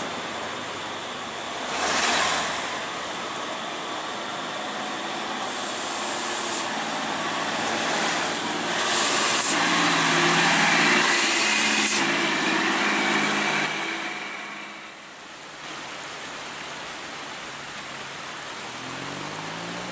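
Heavy tow truck's engine running as it hauls a towed bus past, mixed with other road traffic; loudest around the middle, then dropping away suddenly near two-thirds of the way in.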